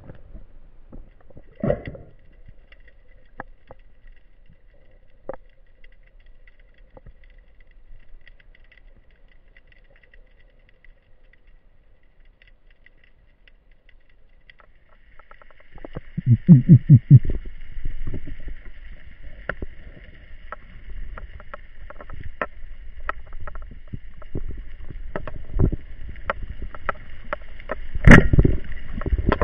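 Underwater sound picked up by a diver's camera housing: quiet water noise with scattered clicks. About halfway a steady high whine sets in, with a loud low burst and then frequent clicks and knocks.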